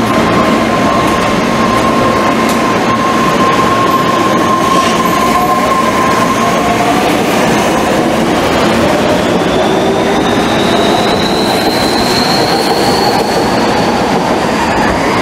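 Kobe Municipal Subway 6000-series electric train pulling out of an underground station, its wheels and running gear rumbling throughout. A steady whine fades about six seconds in, then the traction motors' whine rises in pitch as the train picks up speed.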